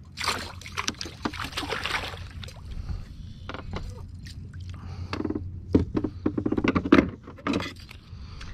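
Small bass splashing at the water's surface as it is reeled in beside a plastic kayak, then a run of sharp knocks and rattles as the caught fish is handled over the deck, thickest about five to seven seconds in.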